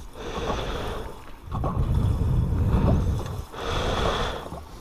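Gasoline pouring from a Ski-Doo LinQ gas can's yellow lock spout into an ATV's fuel tank, gurgling and flowing unevenly.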